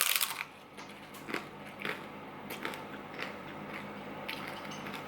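A person chewing and biting into a fish taco in a taco-boat shell, with short crunches coming at irregular intervals.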